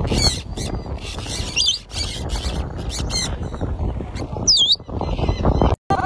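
Free-flying parrots squawking in flight: harsh, short calls repeated several times a second, with a couple of shriller gliding whistled calls among them.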